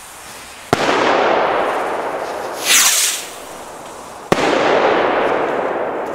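Old Rocket Sprinter firework rockets going off. There is a sharp bang less than a second in and another about four seconds in, each followed by a loud noise that fades over about two seconds. Between the bangs comes a brief high rushing whoosh as the next rocket climbs.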